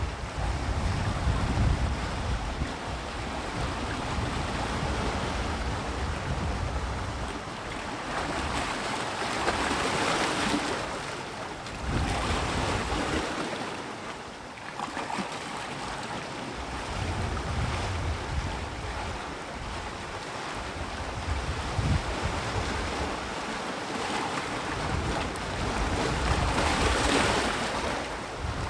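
Sea waves breaking and washing onto the shore in a continuous surf, swelling louder about nine seconds in and again near the end, with wind rumbling on the microphone.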